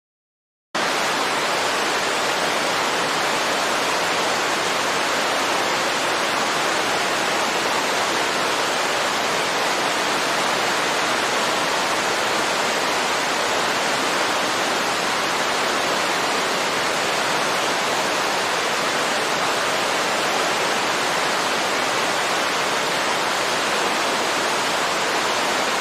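Steady, even rushing of a waterfall, with no birds or other sounds over it. It starts suddenly just under a second in, after dead silence.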